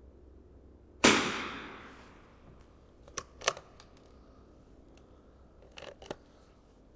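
.22 LR rifle firing a single shot about a second in, its report ringing out for about a second. It is followed by two pairs of sharp metallic clicks.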